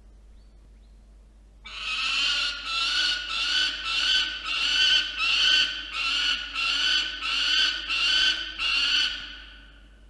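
Male peregrine falcon yelling: a loud run of repeated calls, about two a second, starting about two seconds in and going on for some eight seconds.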